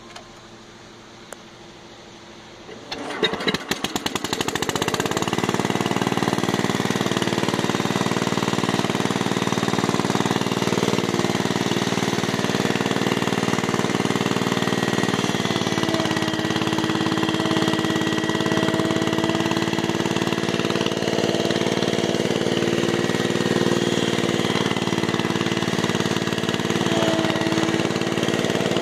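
1967 Case 155 garden tractor's 10 hp engine being cranked by its starter about three seconds in, firing within a couple of seconds and then running steadily.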